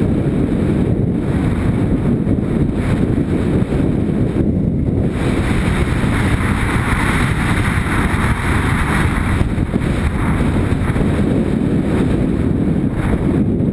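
Motorcycle riding at steady speed on a gravel dirt track: wind buffeting the on-board camera's microphone over the running engine.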